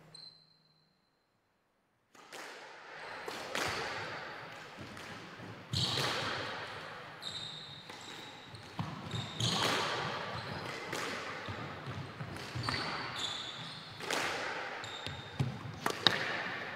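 Squash rally: sharp smacks of the ball off rackets and walls, about one or two a second, each ringing briefly in the court, with short high squeaks of shoes on the wooden court floor. The sound drops out completely for about two seconds near the start.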